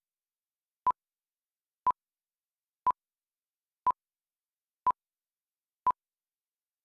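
Film-leader countdown beeps: one short, high, single-pitched beep each second, six in a row, with silence between them.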